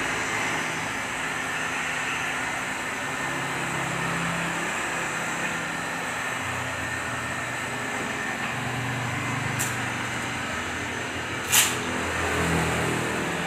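Handheld heat gun blowing a steady hiss of hot air while tint film is heat-shrunk onto a car windscreen. A faint click comes about two thirds of the way through, and a sharp knock a couple of seconds before the end.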